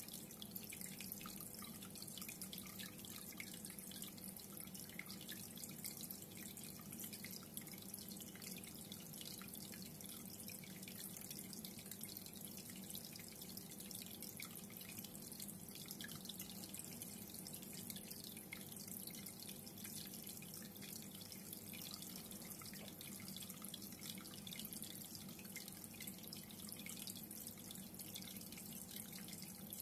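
Reef aquarium water trickling and dripping steadily, a dense fizz of small splashes, with a steady low hum beneath it.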